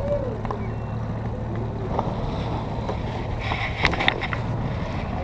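Bass boat outboard motor idling with a steady low hum, with a few sharp knocks about four seconds in.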